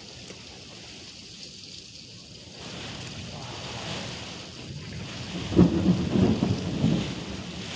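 Heavy rain falling steadily, then a loud clap of thunder about five and a half seconds in that rumbles for about a second and a half.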